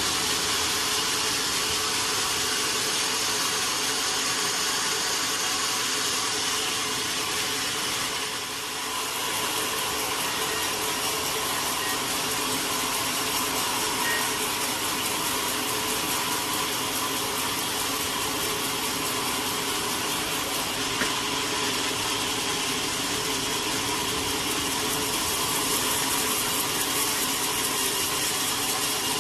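Sawmill machinery running steadily: a continuous mechanical hum and hiss, dipping briefly about eight seconds in.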